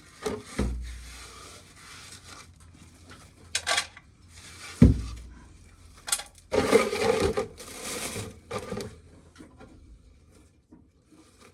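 Irregular handling noises around a pail of shelled corn: scattered knocks, two heavy thumps and short stretches of rattling and rubbing.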